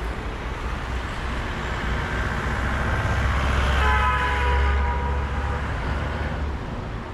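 Road traffic: a vehicle's low rumble swells and fades as it passes, and a vehicle horn sounds briefly about four seconds in.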